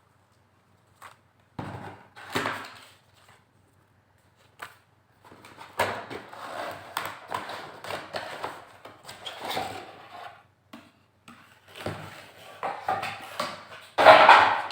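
Laptop packaging being handled and unpacked: irregular rustling and scraping with scattered knocks, loudest near the end.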